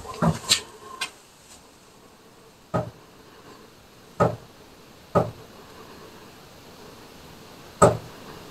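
Knocking, sharp single knocks, irregularly spaced: a quick few in the first second, then single knocks a second or more apart, the last near the end. It sounds like someone knocking on purpose.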